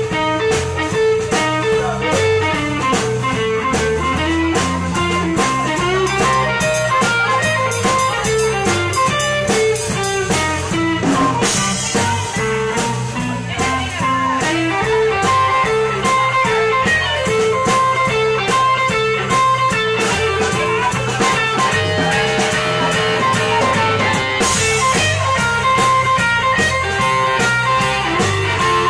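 Electric blues band playing an instrumental passage with no vocals: electric guitar over a bass guitar line and drum kit.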